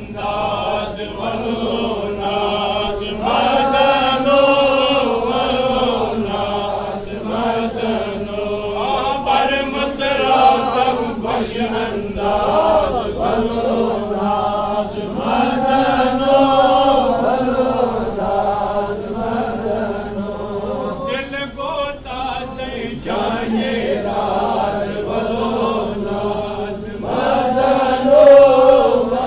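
A man's voice chanting a Sufi devotional poem (kalam) in long, wavering held phrases.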